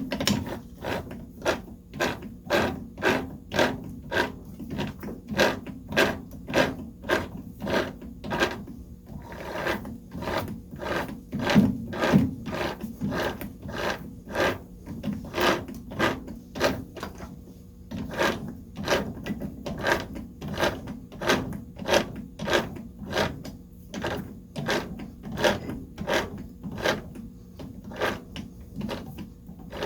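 Metal lathe running at slow speed with a steady hum, under a regular sharp knock repeating about twice a second.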